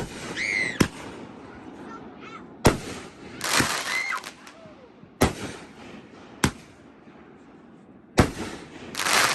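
Consumer fireworks going off: a string of sharp, loud bangs a second or two apart, twice followed by a longer burst of crackling.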